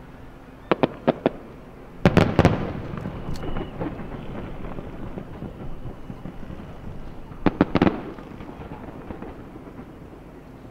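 Aerial firework shells bursting at a distance. A quick run of four sharp bangs comes about a second in. Heavier booms follow around two seconds in, rumbling and echoing away over several seconds, and another tight cluster of bangs comes near the end.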